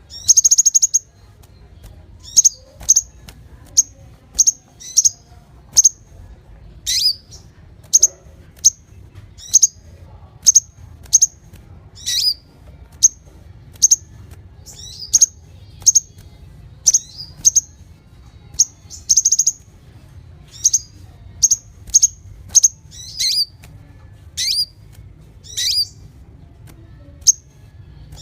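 Konin songbird calling: a steady run of sharp, high-pitched chirps about one or two a second, some as quick downward-sweeping notes, broken twice by a short rapid trill. A faint low hum runs underneath.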